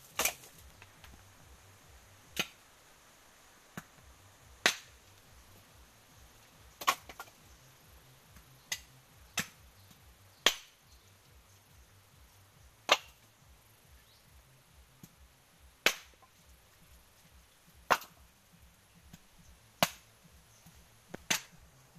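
A string of sharp, hard knocks, about a dozen, spaced one to three seconds apart, as coconut halves are tossed one by one onto a heap of split coconuts.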